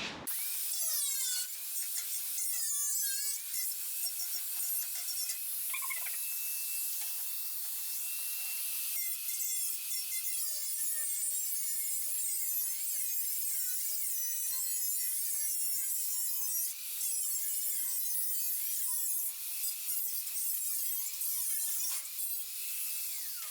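Power tool cutting a strip off a steel floor-pan panel: a steady high-pitched whine whose pitch wavers up and down as it works through the metal.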